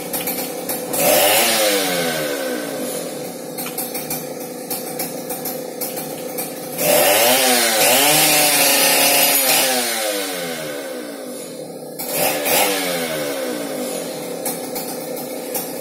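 Two-stroke chainsaw engine running at idle and revved three times, about a second in, for a longer spell near the middle, and briefly near the end, the pitch falling back to idle after each rev.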